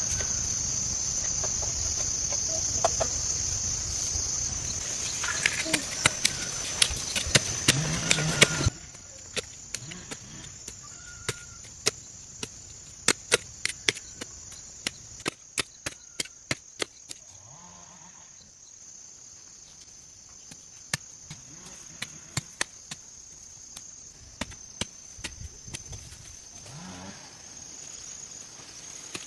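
Repeated sharp chopping knocks, coming in quick runs with pauses between. Insects drone steadily and high-pitched behind them. About a third of the way in, the background drops abruptly and the knocks turn fainter and more spread out.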